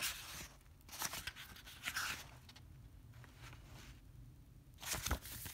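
Paper pages of a booklet being flipped and handled: short rustles at the start and about one and two seconds in, a quiet stretch, then more rustling with a light knock near the end.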